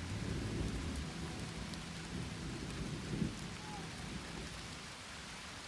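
Steady rain falling, with a low rumble underneath that swells to a peak about three seconds in and then fades.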